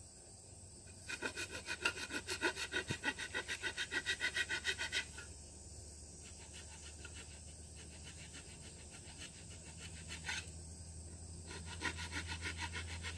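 Rough wood rasp filing down a wooden axe handle to fit the axe head, in quick, even strokes of about five a second. It is loudest from about one to five seconds in, then goes on more faintly.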